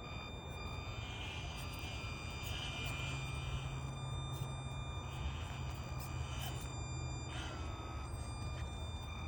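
Axial SCX24 Deadbolt mini RC crawler's small electric motor and gears whining steadily as it crawls, with a low hum that rises about a second in and drops away near the end.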